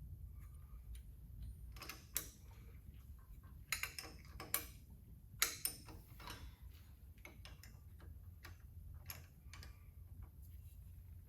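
Irregular light metallic clicks and knocks, about a dozen, the sound of hand tools and metal parts being handled while working on a Jeep's drivetrain.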